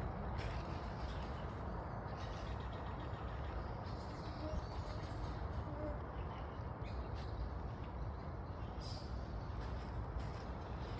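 Park birds chirping in short scattered calls over a steady low rumble.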